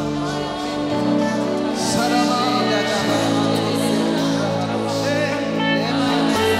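Live gospel song: several singers over a band with keyboard, guitars and drums. The low notes are held and change every second or so.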